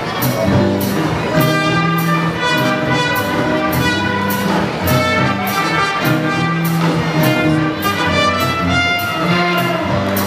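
Circus band music, brass and strings over a steady beat of about two a second.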